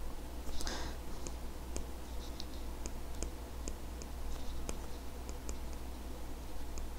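Pen stylus tapping and scratching on a tablet screen during handwriting: a scatter of light, irregular clicks with a soft brushing stroke just under a second in, over a faint steady low hum.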